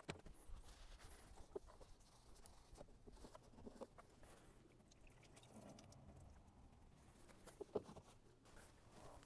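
Near silence with faint clicks and light knocks from a plastic coolant overflow tank being handled: lifted out of its bracket and then set back in. The loudest knock comes near the end as the tank is seated.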